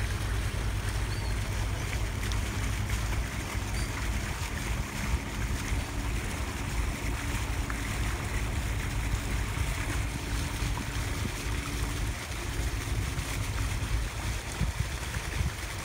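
Sailboat motoring under engine power: a steady low engine drone, mixed with wind on the microphone and water washing past the hull.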